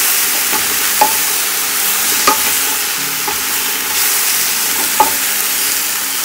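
Diced beets and potatoes sizzling in hot oil in a stainless steel pot as they are stirred with a wooden spoon, with three sharp knocks of the spoon against the pot.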